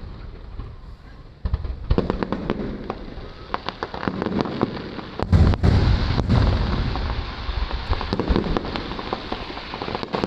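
Aerial fireworks display: after a quieter first second and a half, many shells and crackling reports burst in quick succession. The deepest booms come about five and a half seconds in.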